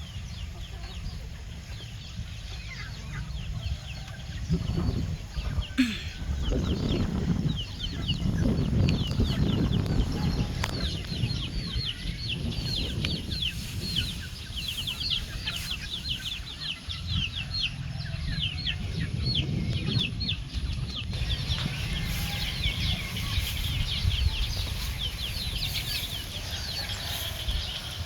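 Young chickens peeping: rapid short, high, falling calls, coming thicker and faster in the second half, over a low rumbling noise.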